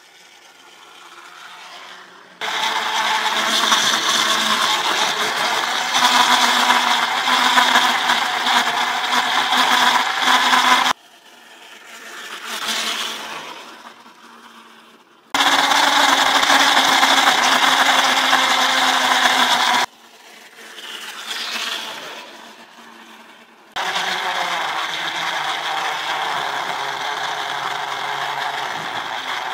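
Electric motor and gears of a model tram running, a steady whine with rattle. It cuts in and out abruptly three times, and in the quieter stretches between, the tram is heard passing, growing louder and then fading.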